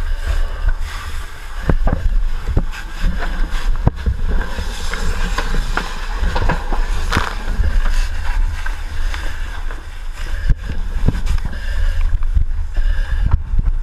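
Fire hose water stream rushing, heard as a steady deep rumble with hiss, with scattered sharp knocks of gear and debris.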